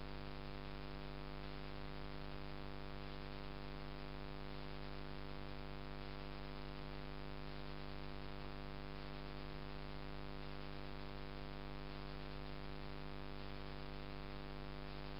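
Steady electrical hum with a layer of hiss, unchanging throughout, with no splashes or knocks standing out.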